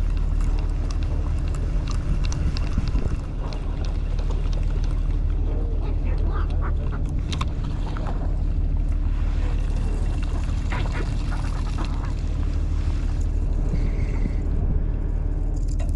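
Boat engine running steadily with a low hum, and seagulls calling over it in short cries, mostly in the middle stretch.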